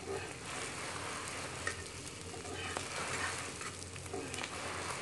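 Stuffed paratha sizzling steadily in oil on a flat tawa, with a couple of light clicks about one and three seconds in.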